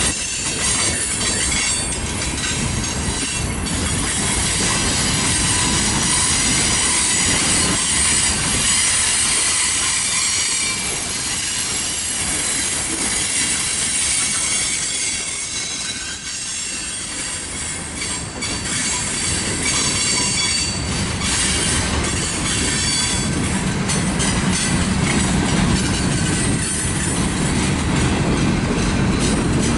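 Freight cars of a mixed freight train rolling past: a steady rumble of steel wheels on rail, with high-pitched wheel squeal and scattered clicks from the wheels.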